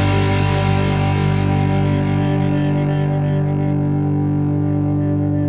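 Background music: one distorted guitar chord held and ringing, its brightness slowly fading.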